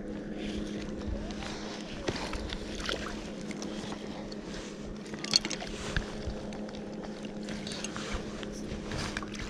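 Small splashes and knocks from a cutthroat trout being handled in a mesh landing net at the water's surface, with a sharper knock about five seconds in. A steady low hum runs underneath.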